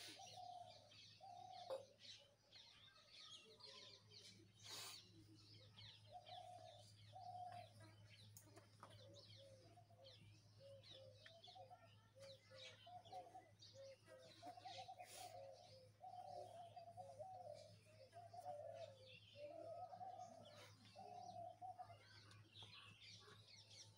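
Near silence: faint bird calls and chirps in the background over a steady low hum.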